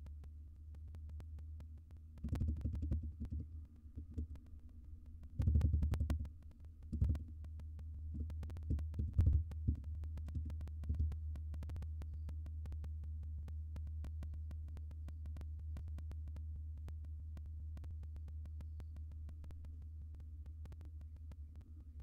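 A steady low hum, broken in the first half by several louder bursts of low rumbling and thudding, with faint clicks throughout.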